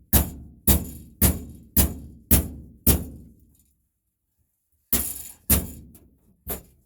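Hammer blows on a hand punch, punching the centres out of rivets: six sharp metallic strikes about two a second, a pause of nearly two seconds, then two more strikes and a couple of lighter taps near the end.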